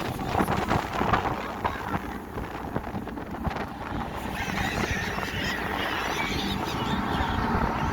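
Gulls calling over a steady engine rumble.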